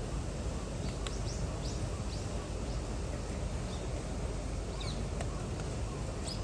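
Steady outdoor background noise with small birds chirping briefly now and then, and a sharp click about a second in.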